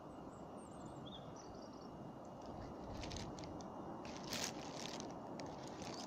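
Steady low outdoor rumble, with short crunching and scraping clicks that begin about halfway through and come irregularly.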